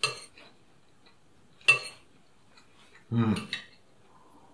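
Knife and fork striking a china plate: two sharp clinks, one at the start and a louder one just under two seconds in. About three seconds in comes a short hum of a man's voice.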